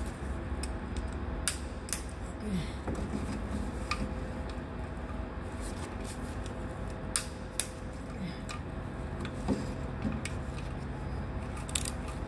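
Metal tools and parts being handled during engine work: scattered light metallic clicks and clinks, with two sharper ones about seven seconds in, over a steady low hum.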